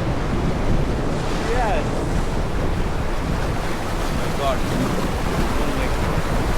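Rushing river water around a raft, a steady noise, with wind buffeting the microphone.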